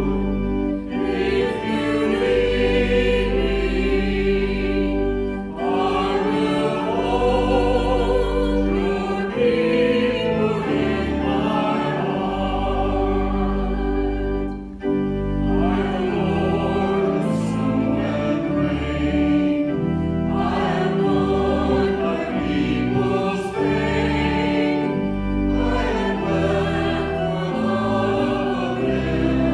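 Choir singing a slow hymn with instrumental accompaniment: long held chords over deep bass notes that change every couple of seconds.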